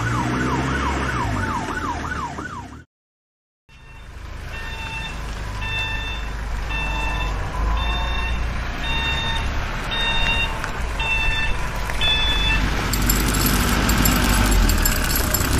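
Dubbed vehicle sound effects over a steady low engine rumble: a fast wailing police-style siren cuts off sharply about three seconds in, leaving a moment of silence. Then comes a steady beeping, about one beep a second, like a heavy machine's warning beeper, and near the end a rattling machine noise takes over.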